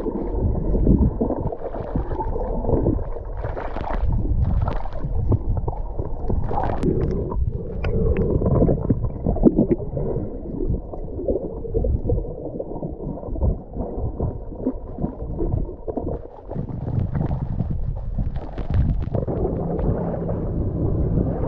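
Muffled gurgling and rushing of water heard through an action camera's waterproof housing underwater, with scattered clicks and knocks, while a swimmer kicks with fins. The sound changes near the end as the camera comes up at the side of a boat.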